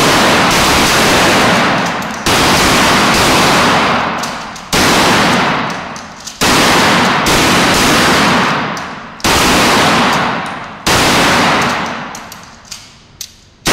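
Gunshots fired one at a time in an indoor shooting range: about five loud shots roughly two seconds apart, each followed by a long echo dying away off the range walls.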